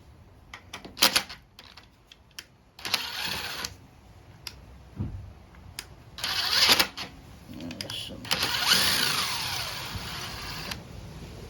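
Clicks and clatter of small metal bolts and tools being handled on a lawn mower engine, with a few stretches of scraping and rustling.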